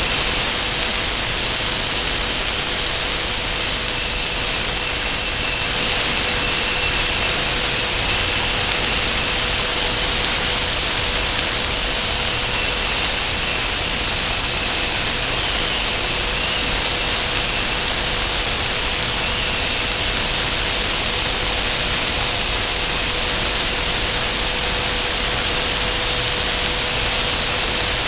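Loud, steady high-pitched machine whine, with a fainter steady low hum beneath it.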